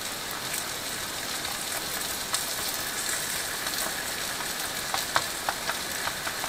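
Flour-coated mushrooms frying in butter in an electric skillet: a steady sizzle, the mushrooms nearly done. A few light clicks come near the end.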